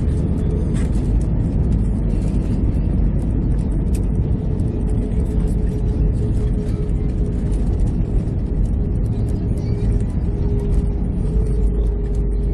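Airbus A320 cabin noise during the landing rollout, with the ground spoilers up: a loud, steady rumble of the engines and wheels on the runway, with a steady hum running under it.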